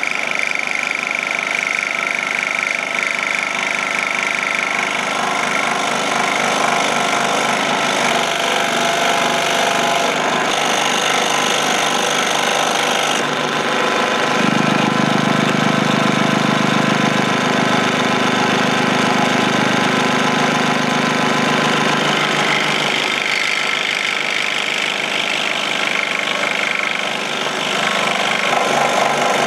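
Scroll saw running and cutting through a wooden wingtip block, a steady buzz from the reciprocating blade. About halfway through it turns lower and louder for several seconds, then settles back.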